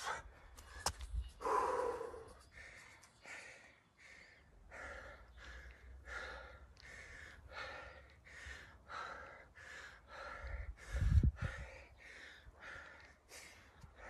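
A man panting hard from exertion during burpees and squats: a loud gasping breath about two seconds in, then quick, even breaths about twice a second. About eleven seconds in there is a brief low thud.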